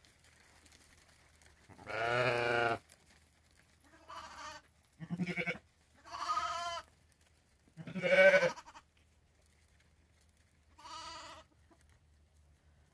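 Sheep bleating: a lamb left behind inside the pen calls out, six bleats over about ten seconds with gaps of one to three seconds between them, the loudest about eight seconds in.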